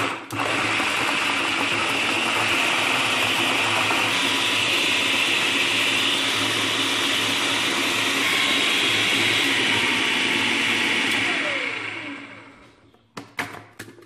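Electric food processor running at a steady speed, its blade churning a liquid cake batter of milk, oil, eggs and chocolate biscuits. Near the end it is switched off and the motor winds down with a falling pitch, followed by a few sharp clicks.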